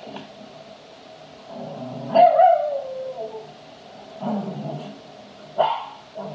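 Cavalier King Charles spaniel barking while playing with another dog. About two seconds in, a loud bark trails off into a falling whine lasting about a second, and two shorter barks follow near four and five and a half seconds.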